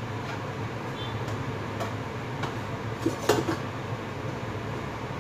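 Stainless-steel pot and its lid clinking a few times, with the loudest knocks about three seconds in, as the pot is tipped over the sink to drain.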